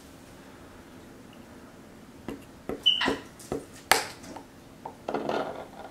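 A hammer and a screwdriver handled by a capuchin monkey, clacking against each other and the tabletop. It is a run of short, sharp clicks and knocks that starts about two seconds in, the loudest near the middle.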